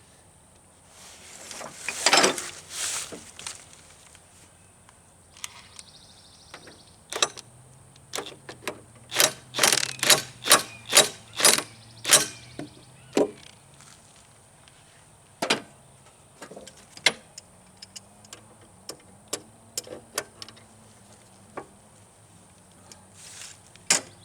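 Clicks and knocks of metal parts and tools being handled during a hydraulic cylinder teardown. They come irregularly, with a scraping rustle early on and a quick run of about eight sharp, evenly spaced taps a little before the middle.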